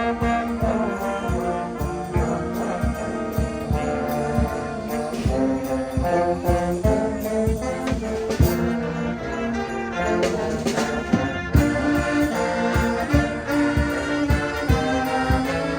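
Music with brass instruments over a steady beat.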